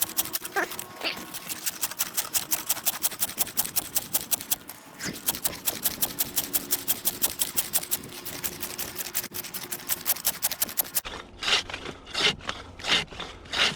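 Homemade hand ice saw cutting through ice with fast, rasping back-and-forth strokes, about four a second, with a brief break about five seconds in. In the last few seconds the strokes slow to heavier, longer pulls about a second apart.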